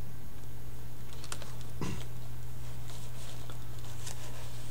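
Pages of a paperback book being leafed through by hand: a few soft paper flicks and rustles over a steady low hum.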